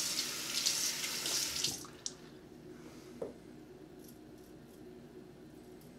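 Water from a bathroom tap splashing into the sink for about two seconds, then running much more quietly.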